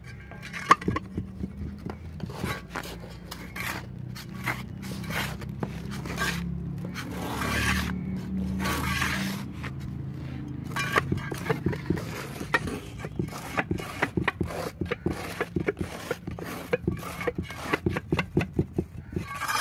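Wet gravel-concrete mix being scraped, pressed and smoothed into a rectangular tile mould with hand and trowel. It comes as a run of quick short scrapes, with longer scraping strokes around the middle.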